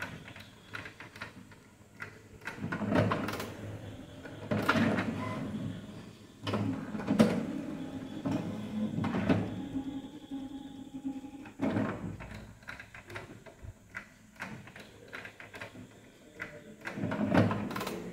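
HP Smart Tank 580 inkjet printer working through a colour test print just after its colour cartridge was unclogged. Its mechanism runs in irregular stretches of one to a few seconds, with knocks and clunks between them.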